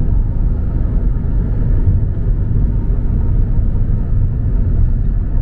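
Steady low rumble of a car driving along a city road, heard from inside the cabin.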